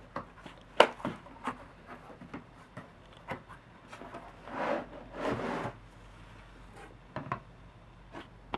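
Handling sounds from the Coleman 533 camping stove and its packaging: a few sharp knocks and taps, with two longer rubbing, sliding sounds about four and five seconds in.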